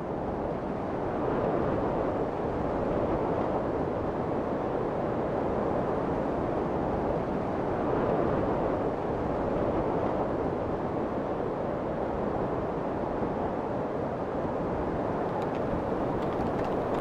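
Steady rushing wind, an even low rush that swells in over the first second and then holds. A few faint ticks come near the end.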